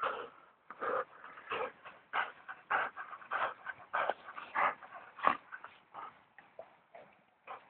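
A Springer Spaniel making a run of short breathy sounds, about one and a half a second, growing fainter toward the end.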